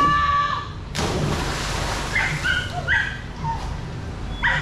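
A dock-diving dog hits the pool water about a second in: one sudden splash that fades over about a second. A dog then yips and barks in short high calls, several times.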